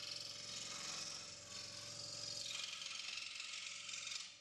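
Proxxon DS 460 scroll saw running, its induction motor and reciprocating blade making a steady fast mechanical buzz with a light rattle; the sound cuts off suddenly near the end.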